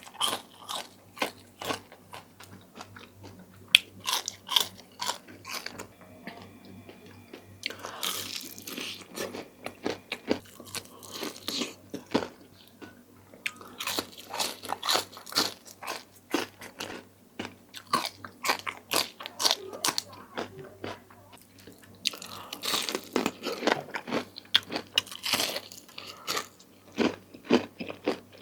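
Crispy chicken wings being bitten and chewed close to the microphone: runs of sharp, crackling crunches that come in bursts, with short pauses between mouthfuls.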